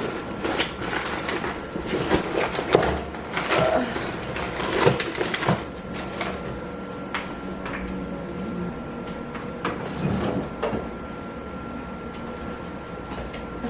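Kitchen clatter from packing a lunch: food containers, lids and utensils handled and set down, a string of clicks and knocks that is busiest in the first half, over a faint steady hum.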